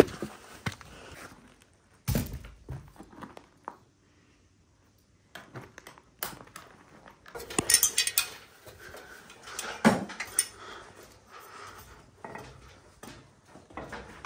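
Footsteps and the knocks and rattles of a bucket of mortar being carried up steps and an aluminium ladder. There is a short silent break about four seconds in, and the densest clattering comes a little past the middle.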